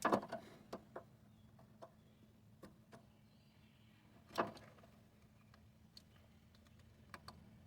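Faint scattered clicks and small knocks of a plastic turn-signal bulb socket being handled as an LED bulb is pushed into it, with one louder knock about four and a half seconds in.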